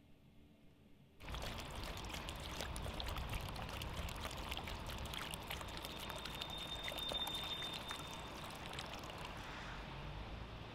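After a second of quiet room tone, water pours in a steady trickle from a plastic bottle into a plastic bowl, starting suddenly with the cut, its splashing thinning out near the end.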